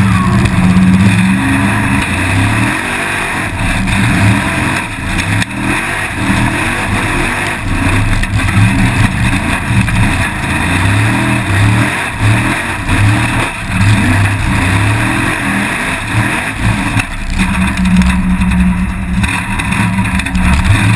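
Formula Offroad buggy's engine heard from the cockpit, revving hard and rising and falling again and again with the throttle as the car climbs and drops over rough terrain, under a steady rush of wind and chassis noise.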